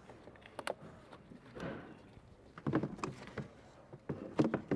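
Hard plastic airbox being worked free and lifted out of a Porsche 996 engine bay: irregular clicks from the wire clip, with short scrapes and knocks of plastic against the surrounding parts, the loudest near the end.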